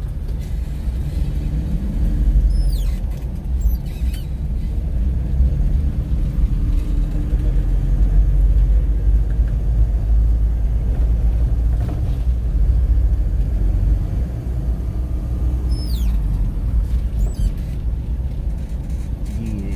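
Steady low rumble of engine and road noise heard from inside a moving vehicle, with a few short high falling chirps a few seconds in and again near the end.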